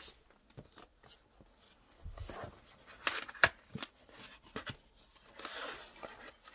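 A cardboard keyboard box being handled and turned in the hands. Scattered clicks and taps, a dull thump about two seconds in, one sharp click about three and a half seconds in, and rustling near the end.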